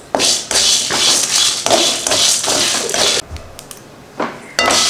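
A spatula stirring and scraping whole dry spices and dried red chillies around a pan as they dry-roast, a dry rattling scrape that eases off about three seconds in. A knock and more scraping come near the end.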